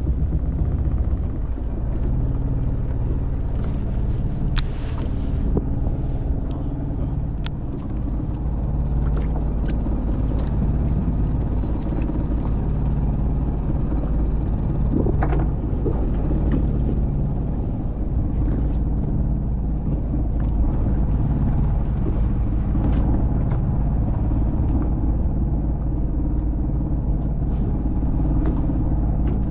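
Fishing boat's engine running steadily, a low droning hum with a few light knocks over it.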